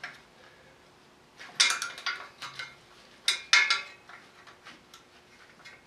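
Hand wrench working on the fan pulley bolts of a Cummins diesel engine: two bursts of quick metallic clicks and clinks, about a second and a half in and again about three seconds in.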